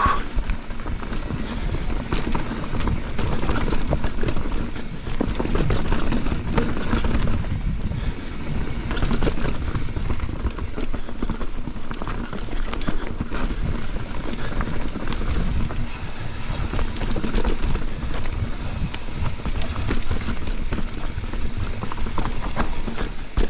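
Mountain bike riding along a rough trail: a continuous rumble of tyres over the ground, with irregular rattling and clattering of the bike.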